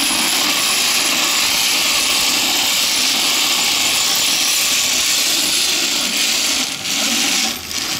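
Zipline trolley's pulleys rolling along the steel cable: a loud, steady, high hiss that drops away near the end.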